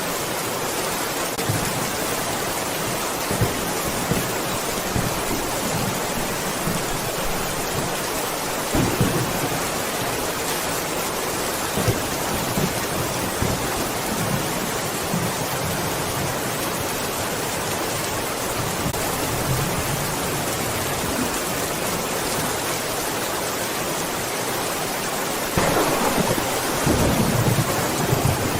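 Steady rain, an even hiss, with low rumbles of thunder every few seconds and a louder roll of thunder starting near the end.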